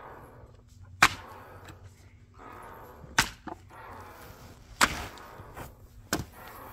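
Four hard strikes of a Fiskars axe biting into a willow round, spaced about one and a half to two seconds apart, chopping around a second axe stuck in the wood to free it.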